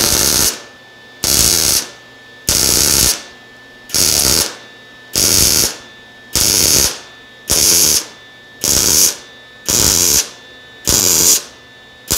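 MIG welder laying stitch welds one dot at a time on a metal tube joint: about ten short bursts of the arc, each about half a second, roughly one a second with brief pauses between.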